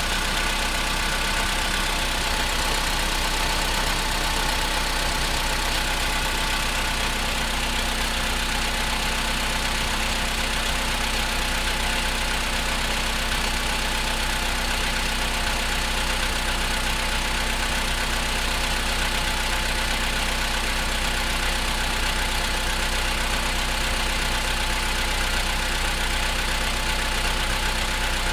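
Car engine idling steadily while still cold, with knocking from the engine: the cold-engine knocks the owner is recording.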